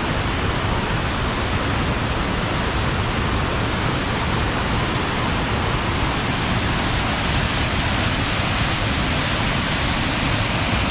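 Waterfall pouring from a concrete outlet and cascading down a rocky slope: a steady, loud rush of white water.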